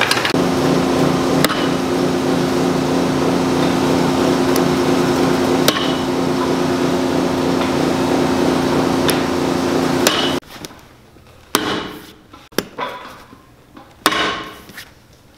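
A shop machine runs with a steady hum for about ten seconds, then cuts off suddenly. After that come a few sharp, separate hammer taps, about a second apart, as small nails are driven to tack a leather sole onto a boot.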